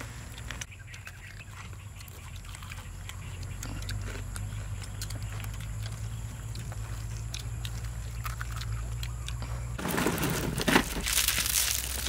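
Crispy shredded-batter fried chicken wings crunching and crackling as hands tear them apart, loud from about ten seconds in. Before that, faint eating clicks over a low steady hum.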